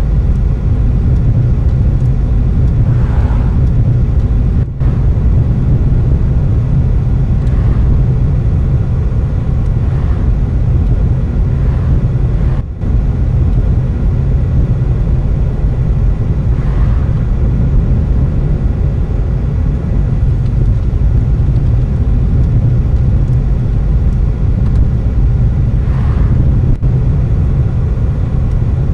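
Road noise inside a moving car: a steady low rumble of engine and tyres, with two brief dropouts in the sound.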